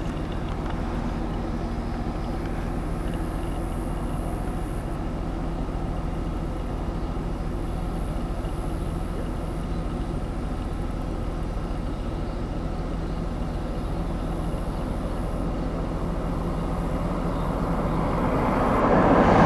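A vehicle engine idling with a steady low hum, then another vehicle approaching and growing louder near the end, its tyres and engine coming up close.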